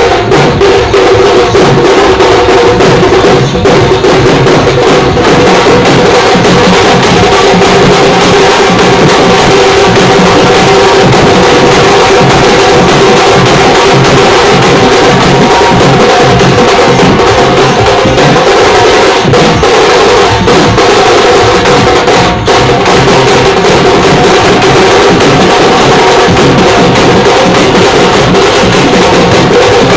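Street drum band playing stick-beaten drums in a loud, fast, continuous beat, with a steady pitched drone running underneath.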